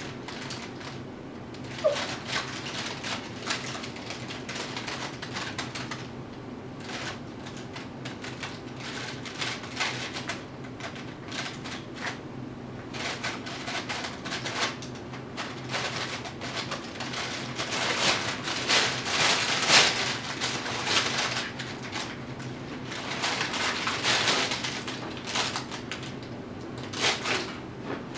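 Tibetan Terrier puppy scrambling about inside a fabric play tunnel, with irregular rustling and clicking that comes thickest about two thirds of the way through and again near the end.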